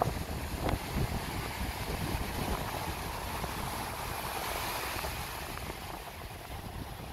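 Wind buffeting the microphone, with the steady wash of surf behind it.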